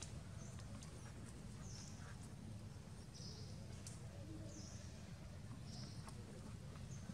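Quiet forest ambience: a short high chirp repeats every second or so over a steady low rumble, with a few faint clicks.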